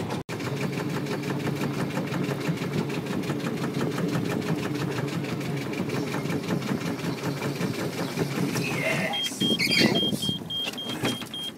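Small fishing boat's engine running steadily with a rapid even beat, dropping away about nine seconds in. A run of short high beeps follows near the end.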